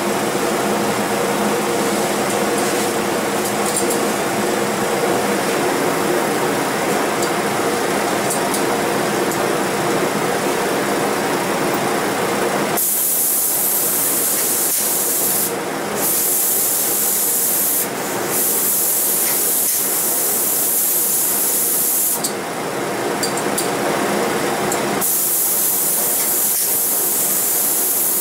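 A steady machine noise with a low hum for about the first half. Then the loud hiss of a spray gun applying finish, in long bursts broken by a few short pauses where the trigger is released.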